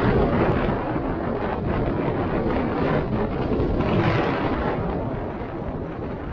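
A car driving slowly on a wet, puddled road: a steady rumble and hiss of tyres on water with wind buffeting, a little louder about four seconds in.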